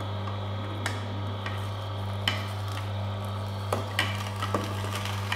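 Oscar DA1000 horizontal slow juicer running at low speed with a steady low motor hum as gotu kola leaves are pressed down the feed chute. A few sharp clicks and crackles come at irregular moments.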